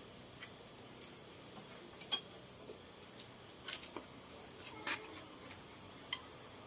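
Steady high-pitched chirring of crickets, with a handful of sharp small clicks and taps scattered through it.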